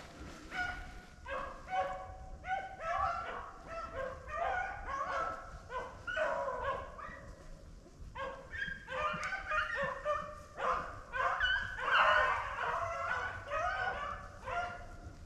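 A pack of beagles baying on a running rabbit's scent trail, several dogs' voices overlapping in a continuous chorus of calls, loudest near the end.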